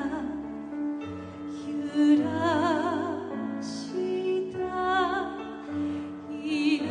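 A woman singing a slow, tender song with strong vibrato on long held notes, over backing music.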